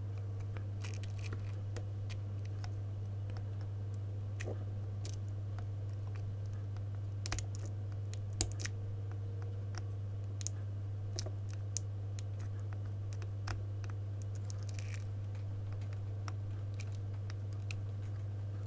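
Soldering iron tip scratching and tapping on a circuit board's solder pads while a capacitor is desoldered: scattered faint clicks and scrapes over a steady low hum.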